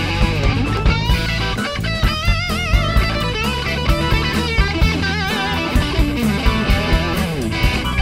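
Live rock band playing an instrumental break: an electric guitar lead with bent, wavering notes over a steady drum beat and bass.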